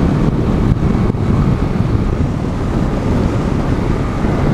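Wind buffeting the microphone on a moving Honda CG 150 Fan motorcycle, with the bike's single-cylinder engine running steadily underneath.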